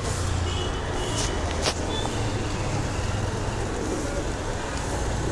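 Street traffic ambience: a steady low engine hum under a wash of road noise, with one sharp click about a second and a half in.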